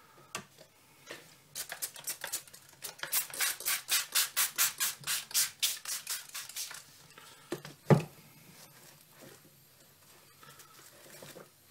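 Hand trigger spray bottle squirting a mist of water onto paper towels, a steady run of quick sprays at about four a second. A single loud knock follows about eight seconds in.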